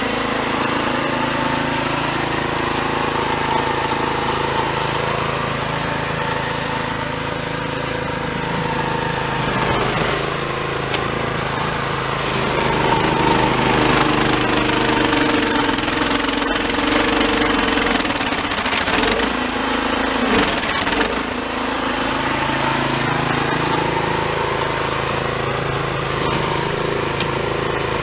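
Toro Snowmaster 724 QXE snowblower engine running under load as it clears deep, heavy, refrozen snow, with the rush of snow being thrown from the chute. About halfway through, the engine note sags for several seconds as it works through the heavy snow, then comes back up.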